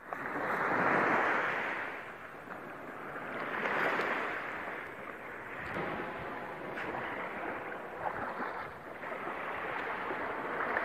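Sea surf washing onto a sandy beach, the noise of the waves swelling and easing every few seconds.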